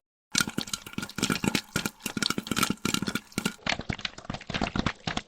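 Popcorn popping fast, a dense, irregular patter of many pops a second. About three and a half seconds in, the pops carry on but sound duller, as an edited variation of the same popping takes over.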